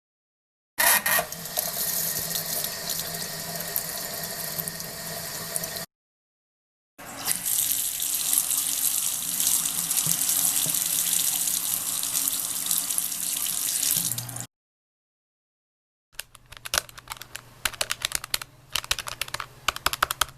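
Running water, as from a tap into a sink, in two separate takes: about five seconds, a pause, then about seven seconds. About sixteen seconds in, rapid uneven clicking of computer keyboard typing starts.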